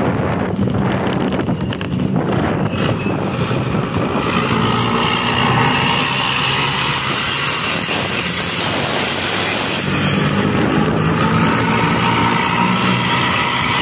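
A road vehicle driving at speed: a steady engine drone that swells about ten seconds in, over road and wind noise.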